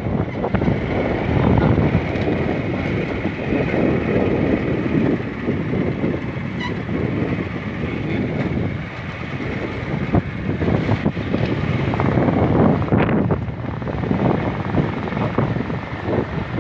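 Small motorcycle engine running steadily while riding along a rough rural road, mixed with rumbling road and wind noise.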